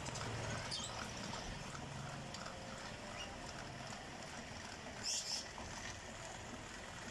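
Small albino cage birds in a wire aviary chirping faintly now and then, with a brighter high chirp about five seconds in, over a low steady hum.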